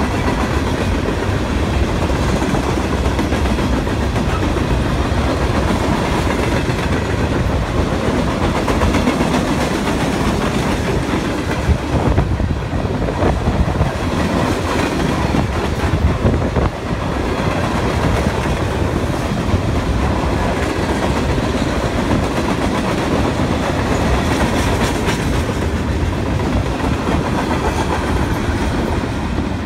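Freight train of steel gondola cars rolling past, loud and steady: the wheels rumble and rattle on the rails, with a few sharper clanks around the middle.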